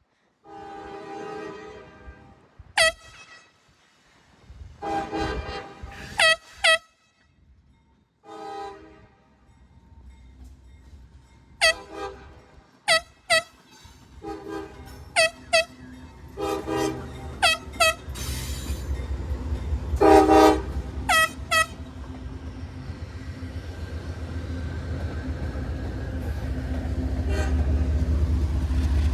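Union Pacific freight locomotive sounding its multi-chime air horn in a string of short blasts as it approaches. The low rumble of the train grows steadily louder in the second half.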